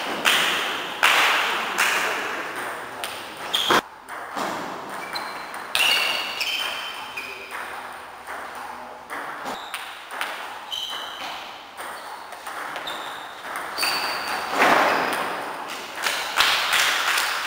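Table tennis balls clicking irregularly off tables and bats, some clicks with a short ringing ping, in an echoing sports hall.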